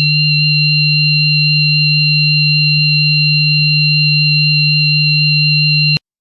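Steady electronic tone from a horror sound effect: a loud low hum with piercing high-pitched tones above it, held unchanged, cutting off abruptly just before the end.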